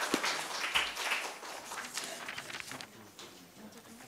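Audience applause dying away over the first two seconds, leaving faint room noise.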